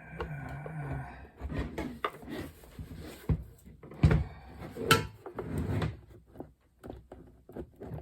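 Plastic case of an external floppy drive being handled and pried at to separate its halves: scattered clicks and knocks, the sharpest about three, four and five seconds in.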